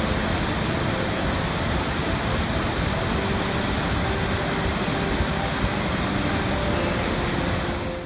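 Large waterfall: the steady, dense rush of a big volume of water plunging over the falls, fading down near the end.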